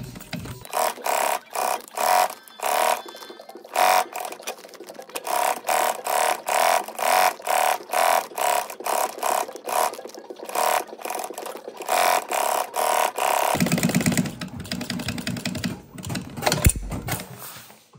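Industrial sewing machine stitching sailcloth in short bursts, about two a second, then running more steadily for a few seconds near the end. A single sharp knock comes just before the end.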